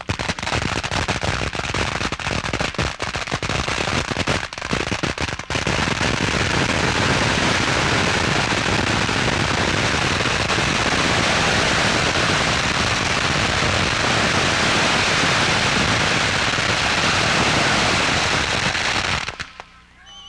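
Firecrackers going off in very rapid succession. The dense pops merge into one continuous crackle about five seconds in, then cut off suddenly near the end.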